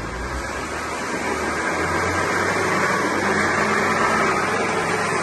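BMW X1 E84 front differential (3.15 ratio) humming as the xDrive drivetrain spins up on a lift with the wheels turning freely. The hum grows steadily louder as speed builds. It is the sign of a failed front differential, which the mechanics put down, most likely, to a seized front propshaft U-joint.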